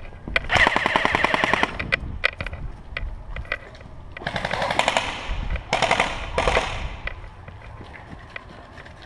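Airsoft guns firing on full auto: a burst of rapid shots lasting over a second, then three shorter bursts a few seconds later, with scattered single shots between them.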